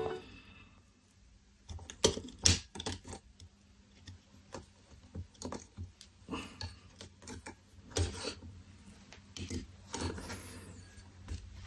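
Scattered faint clicks and knocks of handling as a thermostat circuit board is taken out of a spring-loaded metal PCB holder and the holder's clamp is moved.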